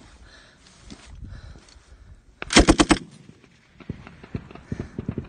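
A close, loud burst of automatic rifle fire, about five shots in quick succession, about two and a half seconds in, with fainter scattered single reports around it.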